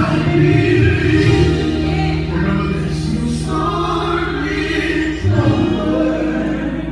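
Gospel song with a choir singing over sustained low instrumental notes, loud and continuous.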